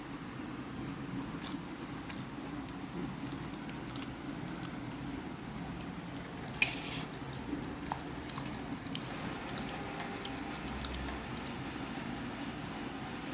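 Light clicks and clinks of kitchen utensils over a steady low hum, with one sharp clack about six and a half seconds in.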